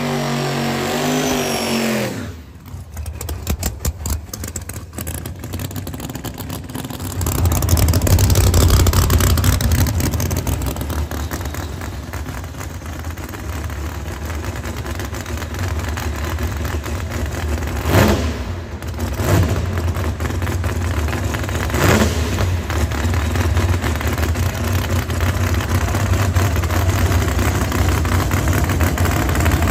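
Drag radial race car's engine, a Ford Mustang, running loud and rough at the start line, with three quick throttle blips in the second half.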